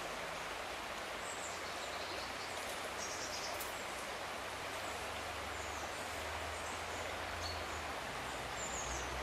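Steady rushing of a flowing trout stream, with a few short, high bird chirps over it.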